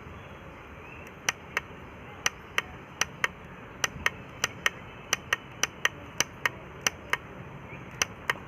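Plastic hour-setting button on the back of a digital table-top alarm clock pressed over and over, giving sharp clicks in quick pairs, about ten pairs, starting about a second in, as the hour digits are stepped forward during time setting.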